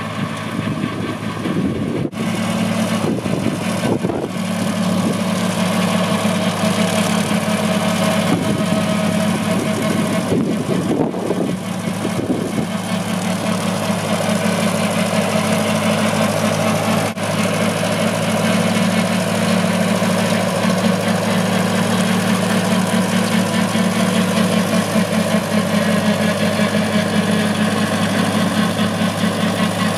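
Small vintage tractor's engine running at a steady working speed while it pulls a rear-mounted topper mower through long grass.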